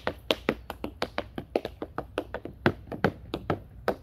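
Tap shoes striking a wooden board in a fast, uneven tap-dance rhythm, about five or six crisp metal-on-wood taps a second with varied accents.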